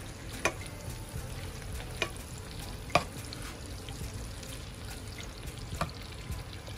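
Butter melting and sizzling in a hot nonstick skillet while a wooden spatula stirs it, with a steady sizzle throughout. The spatula knocks sharply against the pan four times, loudest about three seconds in.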